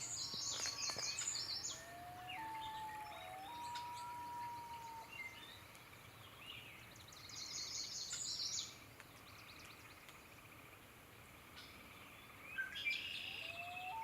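Common loons wailing: long, pure calls that slide up and hold, about two seconds in and again near the end. Around them, smaller songbirds give quick high trills and chatter, loudest at the start and about halfway through.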